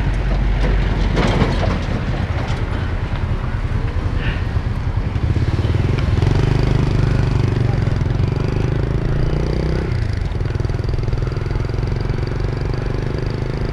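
A motor vehicle engine running close by over general street noise. Its low hum is loudest from about five to ten seconds in.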